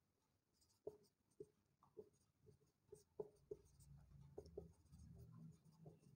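Faint, short scratching strokes and taps of a marker pen writing on a whiteboard, scattered irregularly, over quiet room tone.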